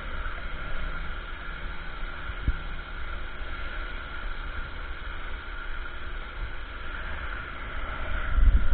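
Ryobi RY14122 electric pressure washer spraying a jet of water onto a car: a steady hiss, growing louder near the end.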